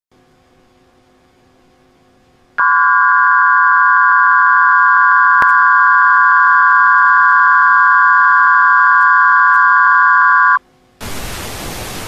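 Emergency Alert System–style attention tone: a steady chord of several high pitches held for about eight seconds, cutting off abruptly. Less than a second later a hiss of static starts near the end.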